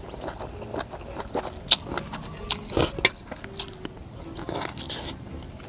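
Close-miked eating: a man slurping noodles and chewing, with several sharp clicks and smacks, then biting into a grilled prawn near the end. Insects chirr steadily in the background.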